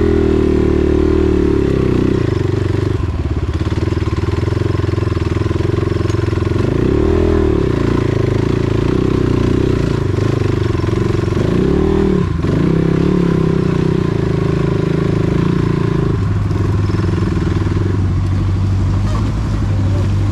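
A vehicle engine running under load, its revs rising and falling several times, then settling to a lower, steady note about three-quarters of the way through.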